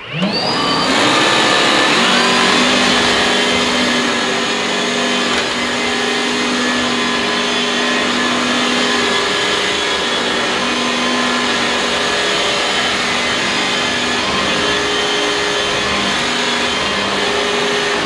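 Makita DVC560Z cordless upright vacuum cleaner, with its motor and mechanically driven brush roller, spinning up with a quick rising whine and then running steadily on its highest of three power settings. It is vacuuming sawdust off a hard laminate floor.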